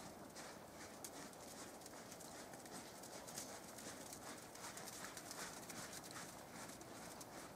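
Faint hoofbeats of a horse moving over soft dirt arena footing.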